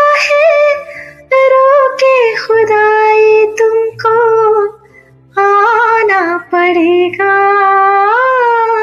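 A woman singing a classic Hindi film song in sustained, wavering phrases, with short breaks between the lines.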